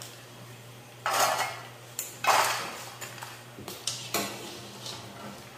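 Metal kitchen utensils scraping and clattering against a pot, with a wire sieve used to lift fried pork cracklings out of their fat. Two longer loud scrapes come about one and two seconds in, followed by several light clinks.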